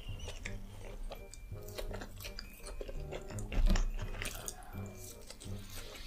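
Close-miked chewing and wet mouth sounds of a person eating, then sucking food off their fingers. There is a louder low thump a little past halfway, all over background music.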